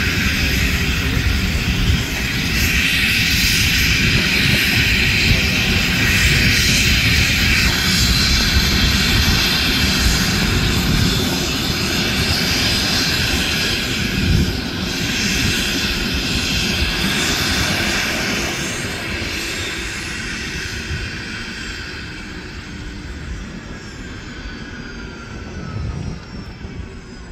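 Sikorsky S-76C+ helicopter running close by, its main rotor chopping and twin turboshaft engines whining. Over the last several seconds the sound gets quieter and the turbine whine glides down in pitch as power comes off after the landing.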